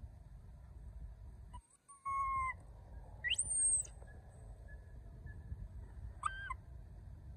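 Young macaques calling three times with short high-pitched cries: a level coo about a second and a half in, a louder squeal rising steeply in pitch just past the middle, and a brief coo near the end, over a low steady rumble.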